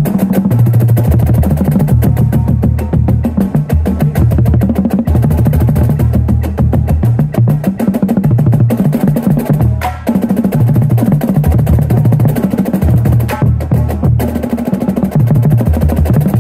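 A line of tuned Yamaha marching bass drums struck with mallets, playing a fast singles warm-up exercise. The strokes are split across the drums, so the low pitch steps up and down, with a brief break about ten seconds in.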